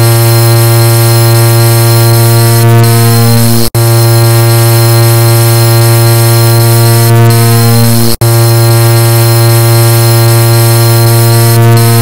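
Car horn blaring in long, very loud blasts, a steady low buzzy tone that breaks off for an instant twice, about four and a half seconds apart.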